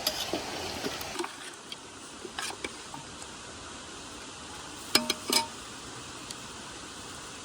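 Cooking pot being stirred with a utensil, with a few soft scrapes and clicks in the first second, then a steady faint hiss. Two short, sharp clinks come about five seconds in.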